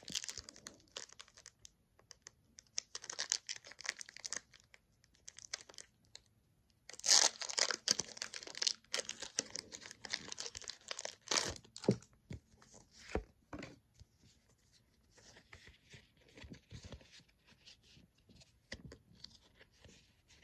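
Foil wrapper of a Pokémon trading card booster pack being torn open and crinkled by hand, in irregular bursts of rustling, loudest about seven to nine seconds in, with a couple of dull knocks near the middle.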